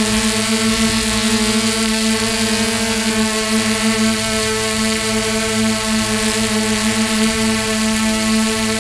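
Hexacopter's electric motors and propellers running in flight, heard up close from a camera mounted on the craft: a loud, steady whining hum whose pitch wavers slightly, over a strong hiss.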